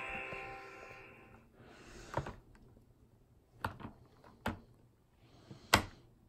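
The tail of the toy school bus's electronic song fades out in the first second or so. Then come four sharp plastic clicks and knocks as the toy bus and its Little People figures are handled, the last the loudest.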